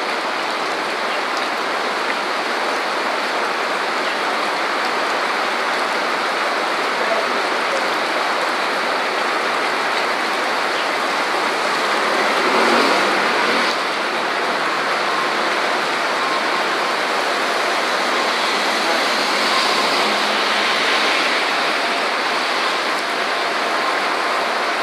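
Heavy rain pouring steadily onto a city street, an even hiss, with tyres swishing through the wet road as cars pass. It swells briefly about halfway through as a car comes close.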